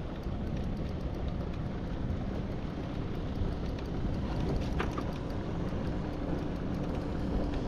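Wind on the microphone over choppy open water: a steady low rumble, with a few faint ticks.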